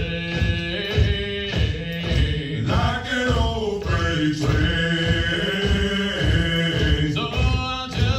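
Marine Corps hiking cadence being sung: chanted military call-and-response singing over a steady beat.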